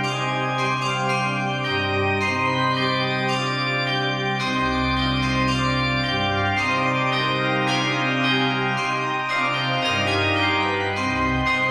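Church bells ringing over held organ chords, the low bass note changing every few seconds.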